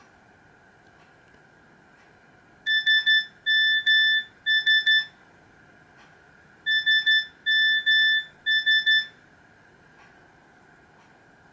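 Nokia C3-01 ringtone: a single-pitched electronic beep pattern of three quick clusters of beeps, played twice with a pause of about a second and a half between, over a faint steady hiss.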